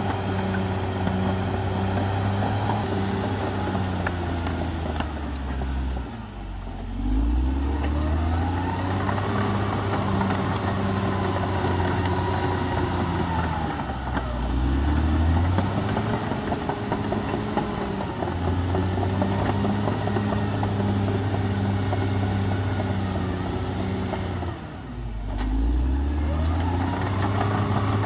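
CAT D6R XL bulldozer's diesel engine running hard. Its pitch sags and climbs back up twice, about six seconds in and again near the end, with a rising whine each time it picks back up.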